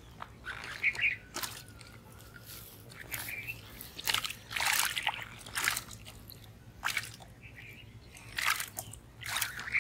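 Shallow pond water splashing and sloshing in irregular short bursts as hands grope inside a bamboo polo fish trap and around a plastic basin of caught fish.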